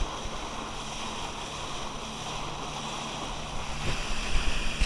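Motorboat under way: a steady engine hum under water rushing past the hull, with wind buffeting the microphone more strongly near the end.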